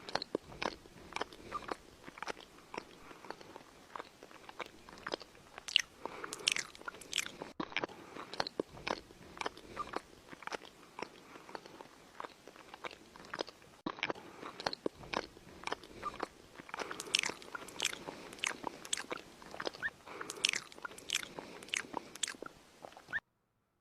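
A person chewing crunchy food close to the microphone, with irregular wet crunches and smacks, cut off suddenly near the end.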